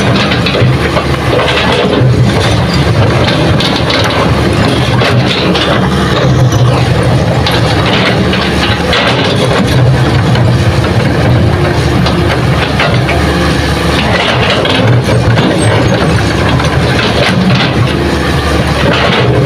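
Hitachi hydraulic excavator's diesel engine running steadily under load as the bucket digs into hard, stony ground, with occasional short knocks and scrapes from the bucket in the soil.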